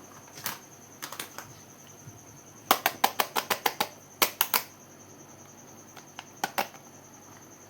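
Sharp taps on makeup packaging: a few scattered taps, then a quick run of about eight, three more, and a pair near the end, over a faint steady high-pitched whine.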